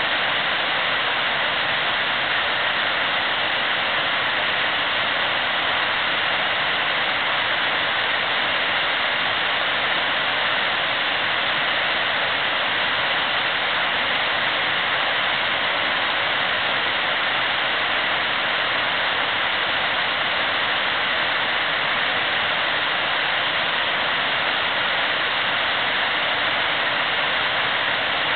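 Steady rush of river water running over shallow rapids.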